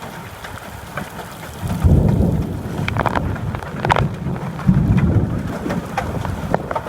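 Hailstorm: rain and hail pelting down steadily. About two seconds in, a loud low rumble sets in and carries on, with a few sharp cracks near three and four seconds.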